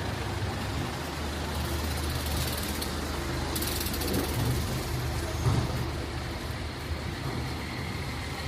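City street traffic: a vehicle engine running close by with a steady low hum, over the noise of passing traffic, with two short hisses about one and a half and three and a half seconds in.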